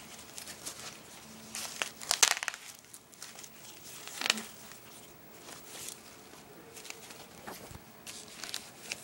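Rustling and scratching of fabric wrist pads being handled, with irregular scratchy bursts, the loudest about two seconds in and again about four seconds in.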